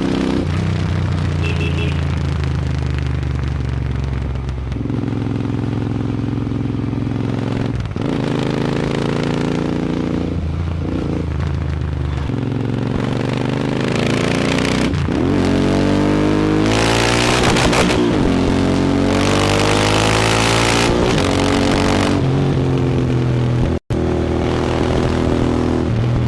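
Royal Enfield Interceptor 650's 648cc parallel-twin engine running loud through an aftermarket AEW 102 exhaust. Its note holds steady at first, then climbs in pitch several times in the second half as the engine is revved. It cuts out for an instant near the end.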